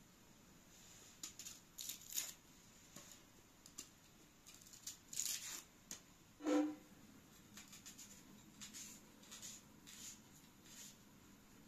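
Small knife peeling and cutting a red onion held in the hand: scattered crisp scrapes and snaps of the onion skin and blade. About six and a half seconds in comes one louder knock with a brief ringing tone.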